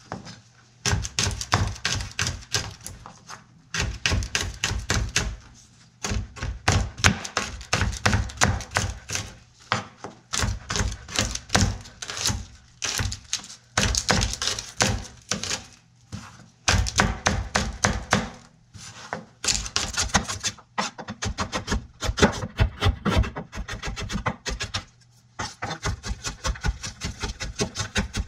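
Knife chopping vegetables on a cutting board: quick runs of knocks, several a second, broken by short pauses.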